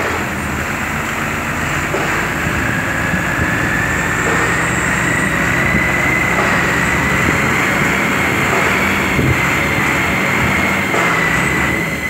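Hydraulic pile-driving rig running under load as its rams press a concrete pile into the ground. A steady low machine drone sits under a high whine that climbs slowly in pitch.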